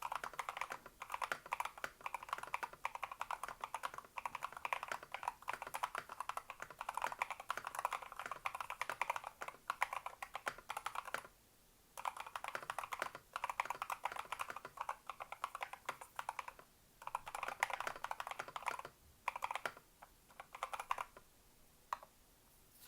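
Typing on a full-size hot-swap mechanical keyboard with Ice Lemon (冰檸) linear switches, added case foam and original-profile keycaps: quick runs of crisp key clacks, broken by a few short pauses around the middle and in the second half.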